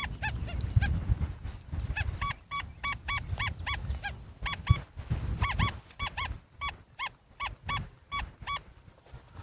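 XP Deus II metal detector beeping in pitch mode: repeated short tones that rise and fall, coming in pairs and clusters as the coil swings back and forth over a buried target. It is a high signal from a Confederate belt plate. Wind rumbles on the microphone underneath.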